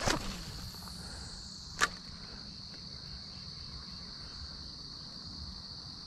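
Swish of a fishing rod whipping through a cast at the start, then a single sharp tick a little under two seconds in, over a steady high trill of insects.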